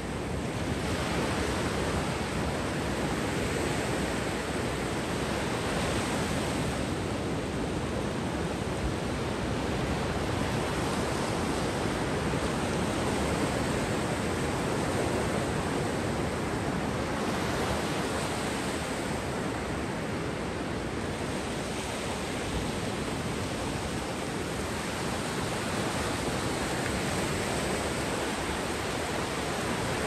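Sea surf washing onto the beach: a continuous rush of breaking waves that swells and eases every several seconds.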